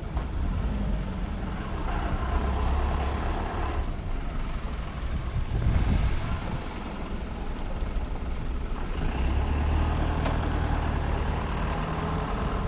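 Low rumble of a bus engine running close by, swelling twice, over general street noise.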